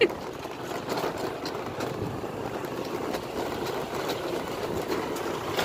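A motorised two-wheeler running steadily while riding along a dirt track, its engine hum mixed with road and wind noise, with small knocks from the rough surface.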